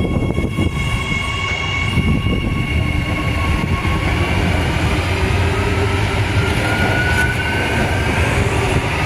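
Adelaide Metro 4000 class electric multiple unit running along the track: a steady low rumble of wheels and running gear, with electric traction whines above it. One whine rises slowly in pitch in the second half as the train gathers speed.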